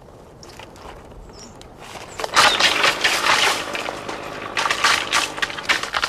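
Olive tree branches being beaten with long sticks: a dense thrashing rustle of leaves and twigs with many sharp cracks. It starts about two seconds in, after quieter rustling, and stays loud.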